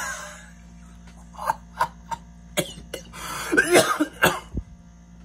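A man's short coughs and breathy, voice-like bursts, several in a row with a denser cluster a little past halfway, over a faint steady electrical hum.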